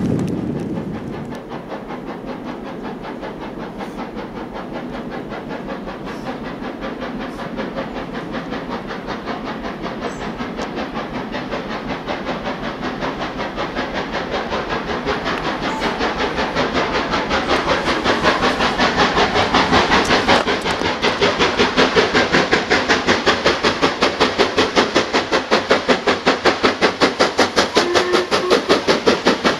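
Steam locomotive hauling a train and approaching, its chimney exhaust beating in a rapid, even rhythm that grows steadily louder as it comes closer.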